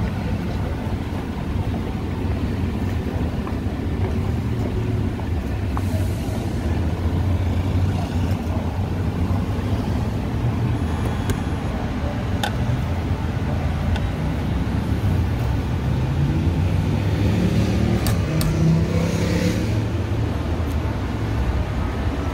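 Steady low rumble of street traffic, with a few sharp clicks as the juice machine's clear plastic pick-up door is pulled open and the cup taken out.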